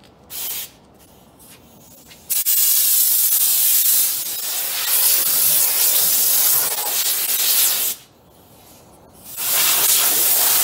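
Compressed-air blow gun hissing in three blasts: a brief one, a long one of about five seconds, and another near the end, blowing build-primer sanding dust off clothing.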